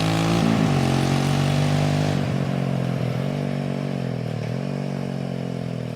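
ATV (quad) engine running under way, its pitch rising and falling several times with throttle changes and slowly fading as it moves away.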